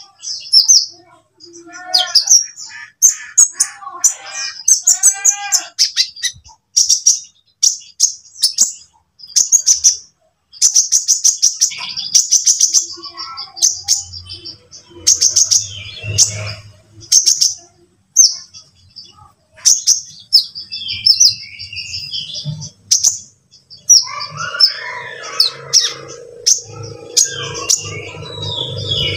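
Brown-throated sunbirds (konin) calling and singing: quick runs of short, high, sharp chirps, with lower falling whistled notes in the first few seconds. A steady low hum comes in near the end.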